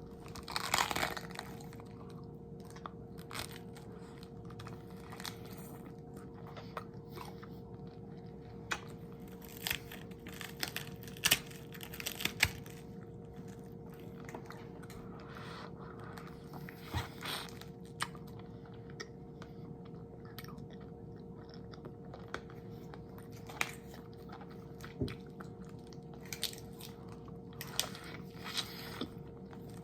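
Close-miked eating for ASMR: irregular crisp crunches and chewing in short bursts, with a faint steady hum underneath.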